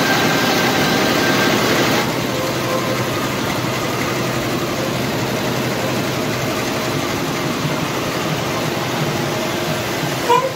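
Richpeace automatic sewing and perforation machine running, a steady dense mechanical clatter from its needle heads working over the leather. A brief sharp sound rises out of it near the end.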